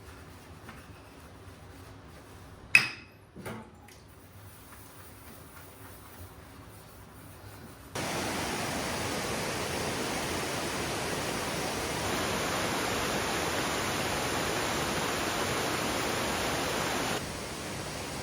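Two sharp knocks over quiet surroundings about three seconds in. Then, after an abrupt cut, the steady rush of a valley stream.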